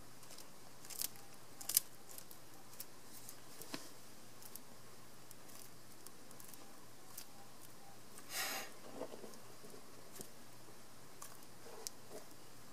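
Faint, scattered crisp clicks and crunches of a bearded dragon chewing a large moth, with a longer scratchy crunch about eight seconds in.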